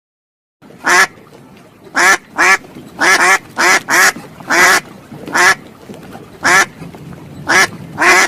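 A duck quacking: about a dozen short, nasal quacks at irregular intervals, starting about half a second in.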